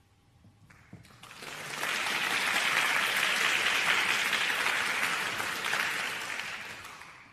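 Audience applauding, building up about a second in, holding steady, then dying away near the end.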